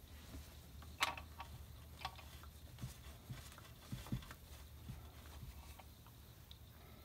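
Faint handling sounds of a filler bottle and a rag on a small live steam locomotive: scattered light clicks and taps, the sharpest about a second in, with a pair of dull knocks a few seconds later as the cloth wipes the engine.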